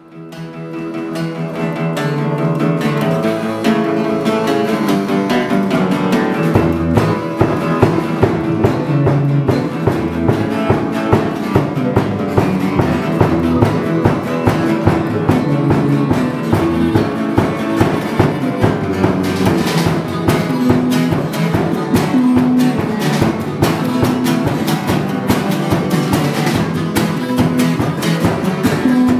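Folk-bluegrass tune on steel-string acoustic guitar and harmonica. About six seconds in, a low bass line and a steady beat join in.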